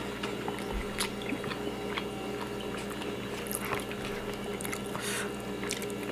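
Close-up eating sounds: wet chewing and lip smacks with scattered small clicks as rice and pork in coconut sauce are eaten by hand, over a faint steady hum.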